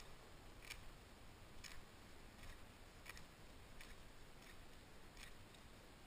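Feathers being plucked by hand from a ptarmigan: faint short ripping ticks, one with each pull, about every 0.7 seconds.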